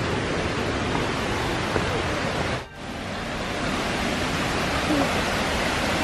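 Steady rush of falling and flowing water from the waterfall stream, an even hiss with no rhythm that dips out briefly about two and a half seconds in.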